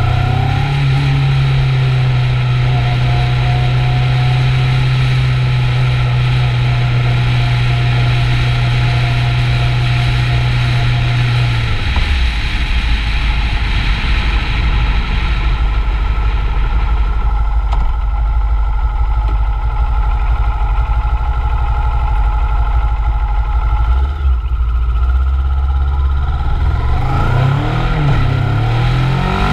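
Kawasaki Ninja 650's parallel-twin engine running under way, with a steady note that steps down in pitch about twelve seconds in. Near the end it rises again as the bike accelerates.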